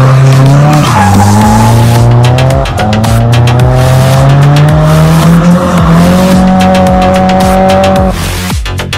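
Nissan 240SX drift car's engine running high in the revs through a slide, with tyres squealing. The revs dip about a second in, climb slowly, step up, then drop off near the end.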